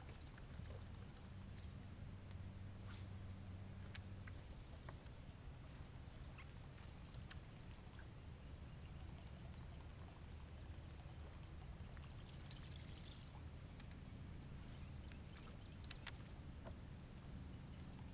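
Steady high-pitched drone of an insect chorus from the swamp woods, with a low steady hum underneath and a few faint clicks.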